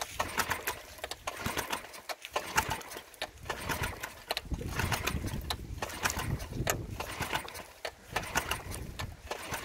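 Mercury 3.5 hp four-stroke outboard engine on choke, running roughly and unevenly with a choppy, faltering beat. It is the sign of fuel starvation, which the owner puts down to a faulty fuel tap.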